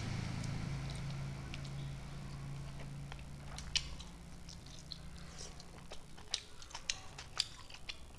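Close-miked chewing of meat bitten off the bone: wet mouth clicks and lip smacks, scattered and growing more frequent from about halfway in. A low steady hum fades out over the first half.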